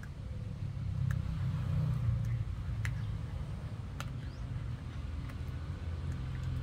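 Puppy chewing a pork bone, with a few sharp cracks of teeth on bone, over a low rumble that swells about a second in, like a passing vehicle.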